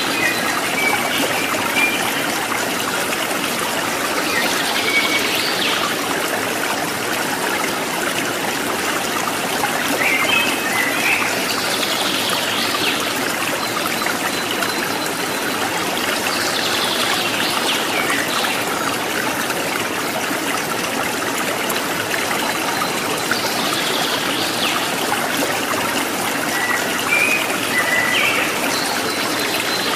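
Flowing stream: a steady rush of water with brief high chirps every few seconds.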